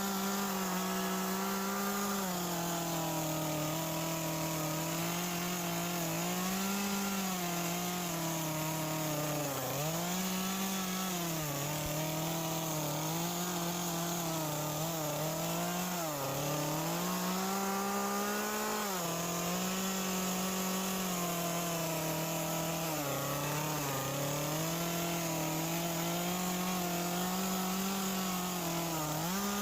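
Echo 2511 top-handle two-stroke carving chainsaw running at high revs as the lower edge of its bar cuts into soaking-wet western red cedar. The engine pitch sags several times, around 10, 16, 19, 23 and 29 seconds in, each time the bar bites into the wood under load, then recovers.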